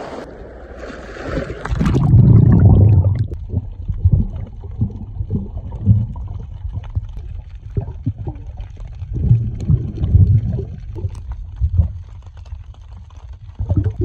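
Water surging over the camera as it goes under, then the muffled sound of being underwater: low swells of moving water from a diver's swimming strokes, with scattered small clicks.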